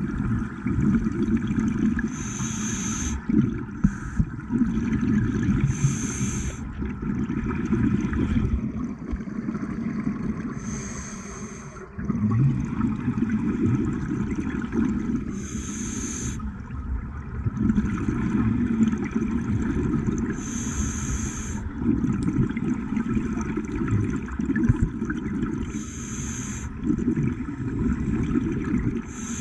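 Scuba diver breathing through a regulator underwater: a short hiss on each inhale, recurring roughly every five seconds, with the low rumble of exhaled bubbles between breaths.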